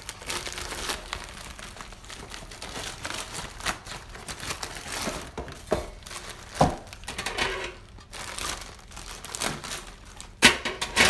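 Plastic bag of frozen taquitos crinkling and rustling as it is handled and reached into, with scattered sharper crackles, the loudest near the end.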